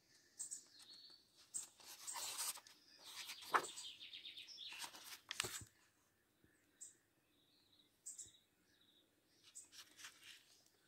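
Paper pages of a hardcover planner being leafed through and turned, a soft rustling that is busiest in the first half. Short high chirps come at intervals throughout.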